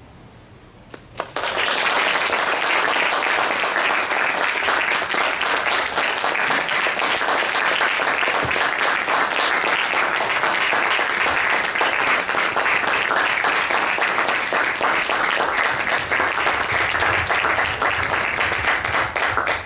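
Audience applauding: dense clapping that starts suddenly about a second in and stays loud and steady.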